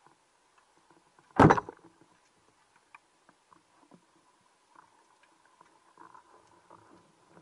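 A rubber-band speargun fired underwater: one loud, sharp shot about a second and a half in. Faint scattered clicks and crackles run underneath.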